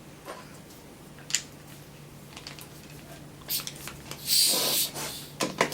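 Light clicks and clinks of tools and compressor parts being handled on a workbench, with a short hissing rustle about four seconds in, over a faint steady hum.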